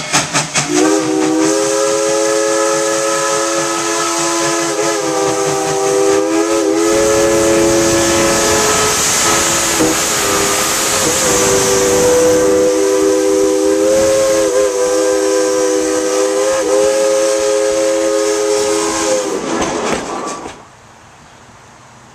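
Tweetsie Railroad's steam locomotive No. 190, a narrow-gauge 4-6-0, chuffs rapidly at first. It then blows its steam whistle, a chord of several notes held almost without a break for about eighteen seconds with brief wavers, over a loud hiss of steam. The sound cuts off suddenly about twenty seconds in.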